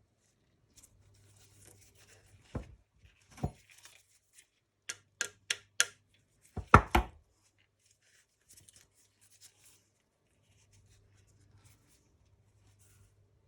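Sharp knocks of a tool struck against a stuck part of a Thunder Tiger EK4 nitro engine to drive it loose: two knocks, then four quick lighter taps, then the two loudest strikes about seven seconds in. The part does not budge.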